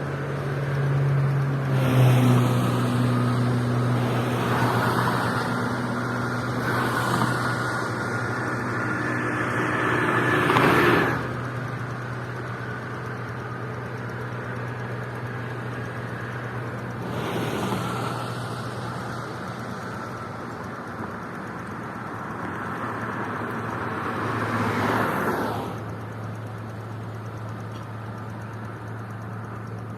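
Cars and trucks passing one after another on a toll expressway, about six pass-bys that each swell and then fall away. The loudest comes about ten seconds in and another near the end; a steady low drone sits underneath.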